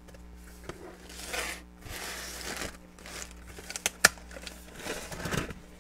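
Tissue paper rustling and crinkling as a cardboard mailer box is closed up, in several short stretches, with one sharp click about four seconds in.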